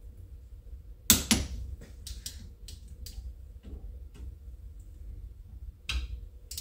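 Click-type torque wrench working the bolts of a VCT phaser held in a vise: a sharp double click about a second in as the wrench reaches its set torque of about 16 N·m, then lighter ratchet ticks and metal clicks, and another sharp click near the end.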